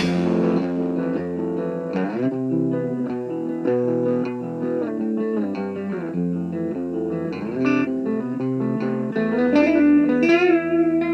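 Indie rock music in a quiet passage: clean electric guitar picking separate ringing notes over held bass notes, the bass changing note about two seconds in and again near the end.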